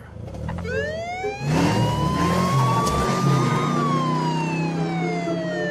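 Police car siren sounding one slow wail: it rises to a peak, then falls slowly. Under it, the car's engine runs louder as the car pulls away, from about a second and a half in.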